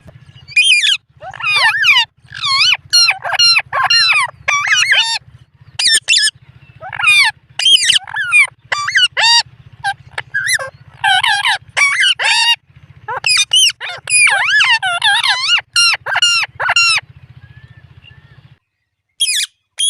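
Indian ringneck parakeet calling: long runs of short, high chirps and squawks that slide up and down in pitch, in bursts with brief gaps, stopping about 17 seconds in.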